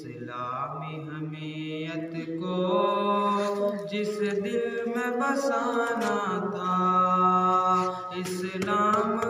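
A man singing an Urdu nazm solo, in long held notes that glide up and down.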